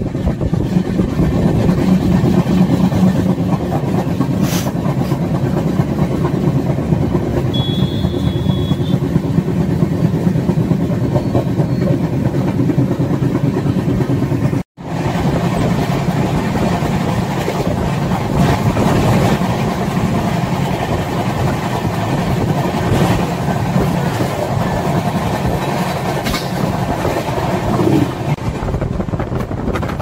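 Passenger train running at speed, heard from inside the coach by an open door or window: a steady rumble of wheels on rails mixed with rushing air. The sound cuts out for an instant about halfway through.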